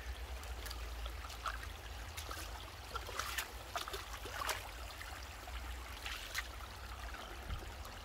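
A small spring-fed creek trickling over rocks, with a few faint ticks scattered through it.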